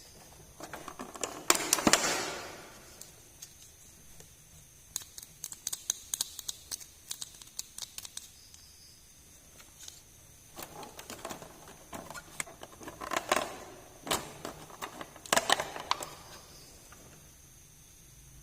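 Small plastic toy pieces handled by hand: quick sharp clicks and taps with short bursts of rustling, the busiest stretch in the second half.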